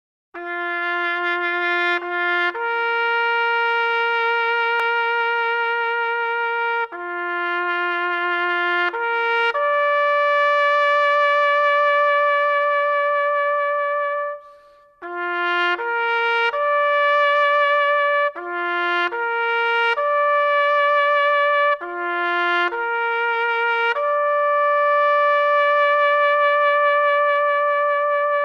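Background music: a slow solo melody played on a trumpet-like brass sound, long held notes with a slight vibrato, breaking off briefly about halfway through.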